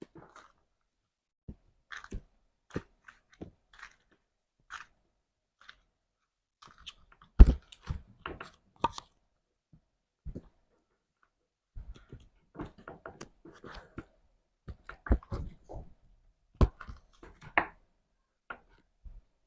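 Slime being squeezed and poked by hand: irregular sticky clicks and crackles, scattered at first and coming thicker in the second half, with one louder pop about seven seconds in.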